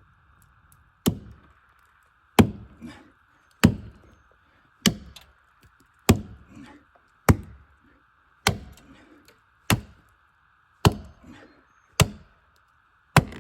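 Repeated blows chopping into a thick tree root in the soil: eleven sharp strikes at a steady pace of about one every 1.2 seconds, each with a short ring after it.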